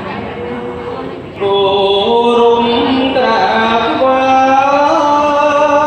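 Khmer smot, Buddhist chanting sung by a male monk into a microphone: long held notes with slow, ornamented turns of pitch. A softer held note gives way about a second and a half in to a new, louder phrase.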